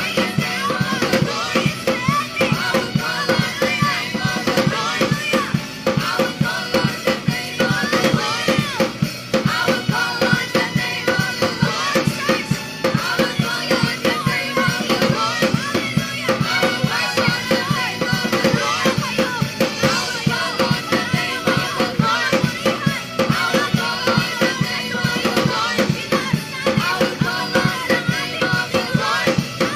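Live praise band with a drum kit keeping a steady, even beat, and voices singing a worship song over it.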